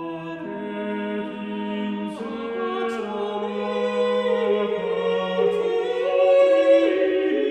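Slow, mock-operatic singing of a lament over a stuck vending-machine snack, in long held notes, to the words 'Oh candy… thy vending machine doth fail my candy'.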